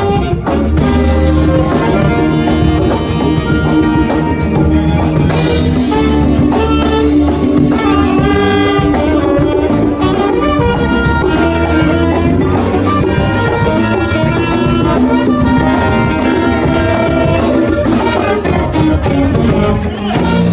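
Live funk band playing a groove: a horn section of saxophone and trumpet carrying the melody over electric bass, guitars, keyboards, percussion and drum kit.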